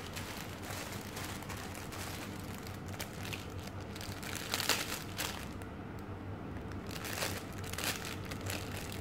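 Clear plastic bubble wrap crinkling and rustling as it is handled and pulled open, in irregular crackles, the loudest a little past halfway through.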